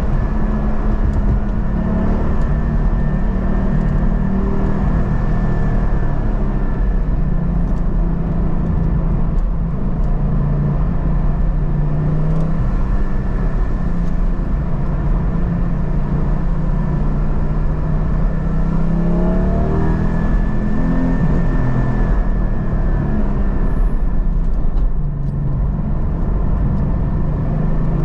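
Porsche 718 GT4's 4.0-litre flat-six heard from inside the cabin while driving on a wet road. The engine note rises and falls with the throttle over a steady wash of tyre noise, and climbs in pitch about twenty seconds in.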